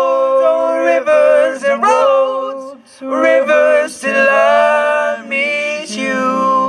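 A group of teenage boys singing together into microphones without instruments, in long held phrases with brief breaks between them.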